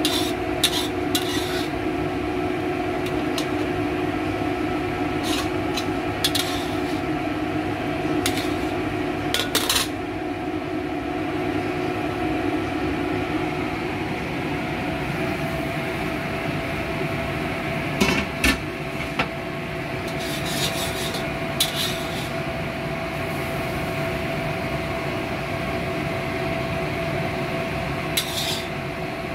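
Metal ladle stirring and scraping in a steel wok, with light clinks of metal on metal, over a steady hum. Past the middle come a few clanks of a metal pot lid.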